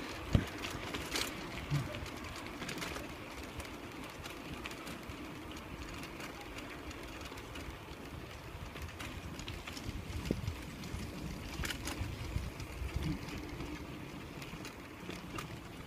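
Outdoor ambience picked up by a phone carried along a sidewalk: a low rumble with scattered thumps and a few sharp clicks from the moving, handled microphone.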